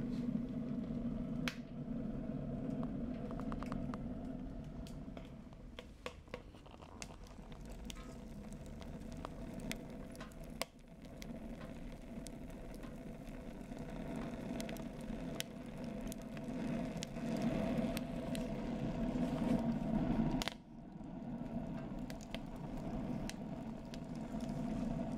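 Homemade propane-tank rocket stove burning wood sticks, drawing with a steady low hum, with scattered crackles and clicks from the fire. The hum drops away sharply about twenty seconds in, then comes back.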